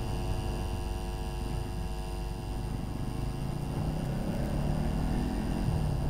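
Bajaj Pulsar NS200's single-cylinder engine running on the move, a steady engine hum. The engine gets louder over the last two seconds as the bike picks up.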